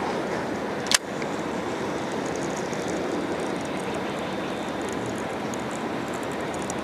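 Baitcasting reel being wound in after a cast: one sharp click about a second in, then faint fast ticking from about two seconds on. Under it runs a steady rush of wind on the microphone.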